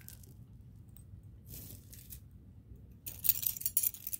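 Metal costume-jewelry chains and beads jingling and clinking as a necklace is handled, starting about three seconds in, after faint rustling.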